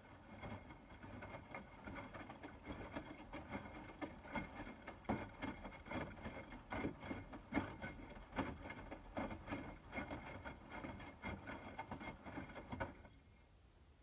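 Hotpoint WMFUG 942 front-loading washing machine on its wash tumble, with wet laundry and water sloshing and splashing in the turning drum as the water heats towards 60°. A faint steady whine runs under the splashing. The drum stops near the end, leaving only a low hum.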